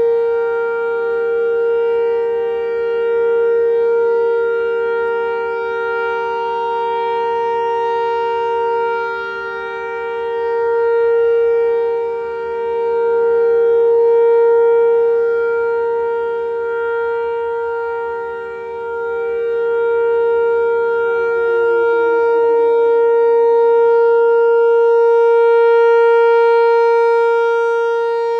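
Whelen Vortex rotating electronic outdoor warning siren sounding a steady alert tone. It swells and fades every several seconds as the head turns. About two-thirds of the way through, a second, lower siren tone slides down in pitch and drops out, leaving the one steady tone.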